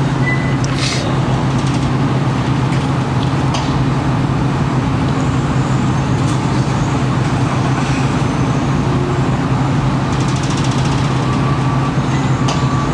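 A steady, loud low mechanical hum with road-traffic noise, unchanging throughout.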